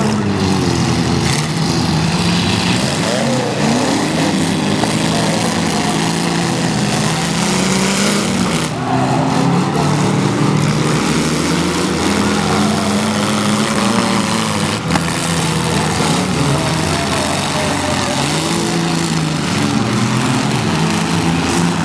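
Several small demolition-derby cars' engines revving, their pitch rising and falling over one another as they drive and ram around the dirt arena, over a steady din.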